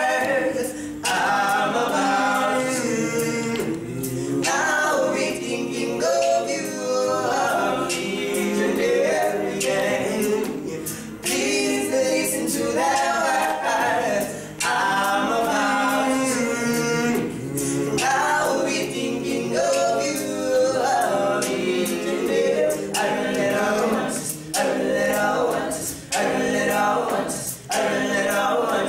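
A small group of voices singing a cappella together in harmony, with no instruments.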